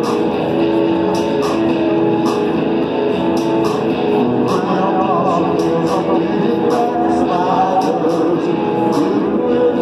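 Live rock band playing: electric guitar over drums keeping a steady beat, with a man singing from about halfway through.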